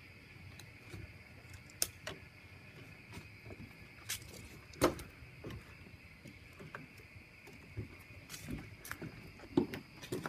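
Irregular knocks, bumps and a few sharp clicks from footsteps and the handling of a handheld camera on a wooden deck, over a steady high-pitched hum.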